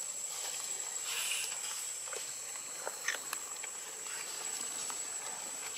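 Steady high-pitched insect drone over a light hiss of forest ambience, with a few faint scattered clicks and rustles.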